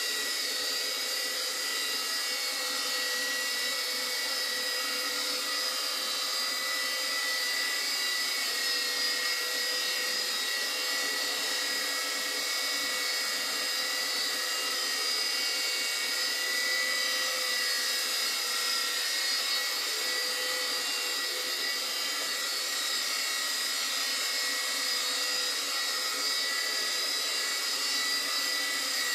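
Mini MJX F-Series RC helicopter's small electric motors and rotors running in a steady high-pitched whine as it hovers.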